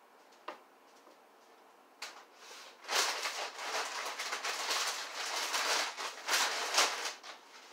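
Bags crinkling and rustling as they are handled and packed into a bin. It starts about two seconds in, after a single light click, and dies down near the end.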